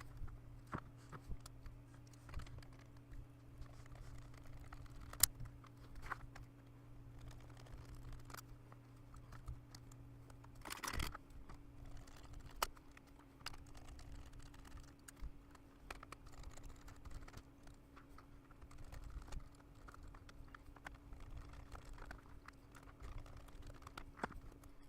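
Light scattered clicks and taps of a laptop's plastic case parts and screws being handled during disassembly, with a longer, louder clatter about eleven seconds in. A faint steady low hum underneath stops about ten seconds in.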